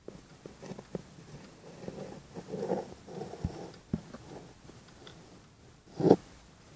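Antique Kienzle pendulum wall clock ticking, mixed with rubbing and handling noises as a finger works at the dial. A louder muffled knock comes about six seconds in.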